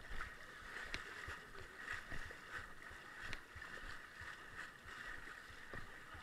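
Icy lake water sloshing and splashing around legs as people wade into the shallows, with irregular low knocks.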